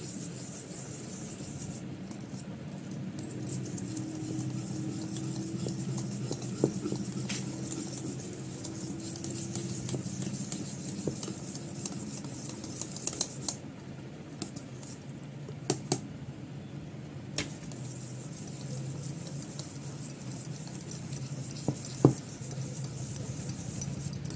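Dhokla batter being beaten by hand in a stainless steel bowl: a steady stirring sound, with glass bangles on the wrist jingling and a few sharp clicks against the bowl.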